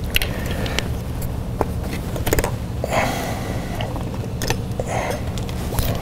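Scattered plastic clicks and rustles of an ignition coil being unplugged and pulled out of its spark plug well, over a steady low hum.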